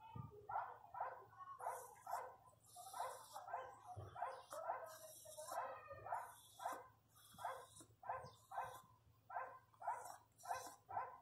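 A dog barking in a long, steady series of short barks, about two a second.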